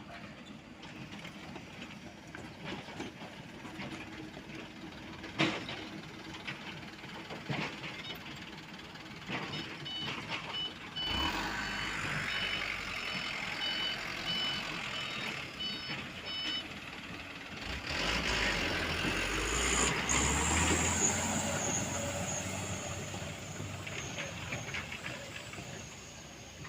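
Diesel engines of a Komatsu PC75UU mini excavator and an Isuzu Elf dump truck running, with a few sharp metal clanks in the first several seconds. A reversing alarm beeps about twice a second for around five seconds midway, then an engine revs up louder for a few seconds.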